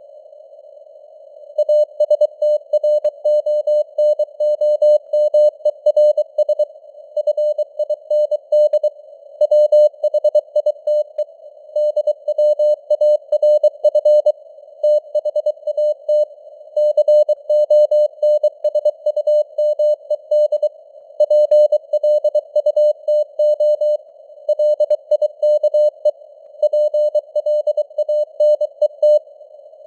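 Morse code sent at 23 words per minute: a single steady mid-pitched tone keyed on and off in dots and dashes, with short pauses between words, over a narrow hiss of simulated radio noise. The signal strength rises and falls (QSB fading). The code begins after about a second and a half of noise alone.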